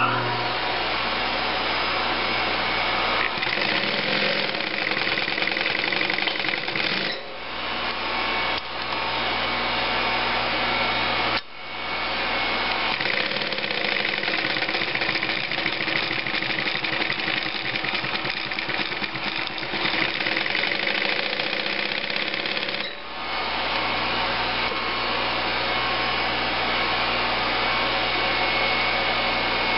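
Singer 111W155 compound-feed industrial sewing machine stitching at a steady run, stopping briefly three times.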